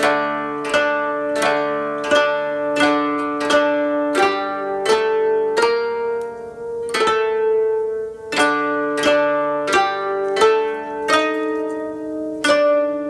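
A koto ensemble playing a gentle melody in unison: plucked notes about one every 0.7 seconds, each ringing and fading. The pace slows in the middle, where a few held notes slide in pitch.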